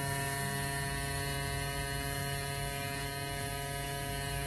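No-Name mini airbrush compressor running steadily on its high setting, a constant electric-motor hum without noticeable pulsing, with a steady hiss of air through the airbrush as it sprays.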